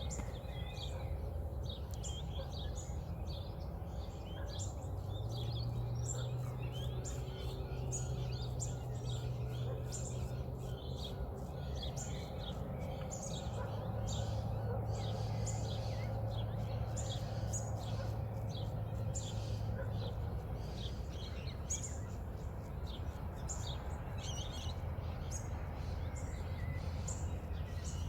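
Dawn chorus of many birds chirping and calling. A low steady hum comes in twice underneath, through the middle stretch.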